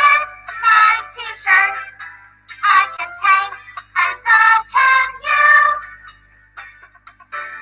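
A recorded children's song from an English coursebook playing: sung lines over a light backing, with a short break a little over six seconds in before the next line begins.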